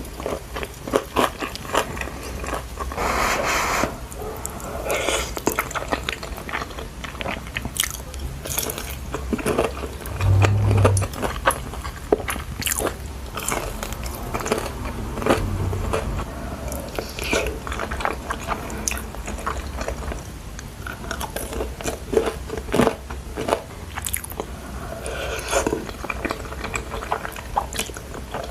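Close-miked ASMR eating: biting into and chewing crispy fried chicken, with many sharp, irregular crunches. A low thud about ten seconds in, and a softer one a few seconds later.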